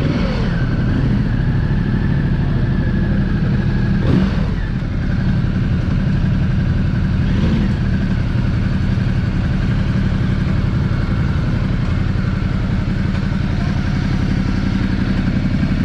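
Motorcycle engine running steadily with a low, even drone.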